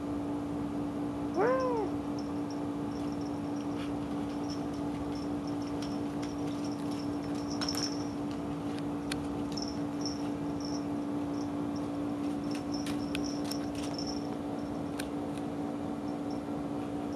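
A kitten gives one short meow about a second and a half in, rising then falling in pitch, over a steady low hum, with scattered faint clicks.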